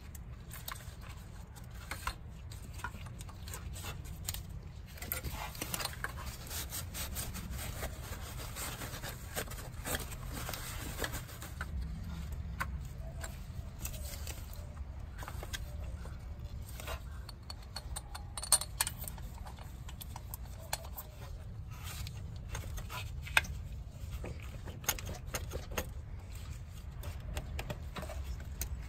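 Scattered light metallic clinks, taps and rubbing as a thermostat, its housing cover, bolts and hand tools are handled and fitted to an engine, with a couple of sharper clicks in the second half. Underneath is a steady low background rumble.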